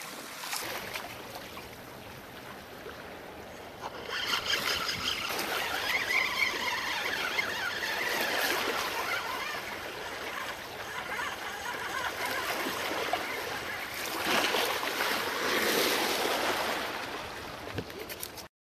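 Sea water washing and splashing against shoreline rocks, swelling louder twice, then cutting off suddenly near the end.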